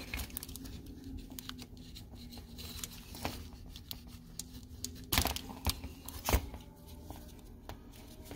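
Plastic injector connectors and clips on a port-injection fuel rail being handled and unclipped: scattered small clicks and rattles, with a few sharper clicks between about five and six and a half seconds in, over a faint steady low hum.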